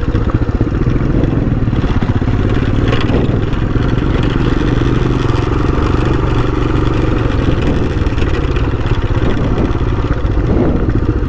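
Royal Enfield Himalayan's 411 cc single-cylinder engine running steadily as the bike rolls along a rough dirt track.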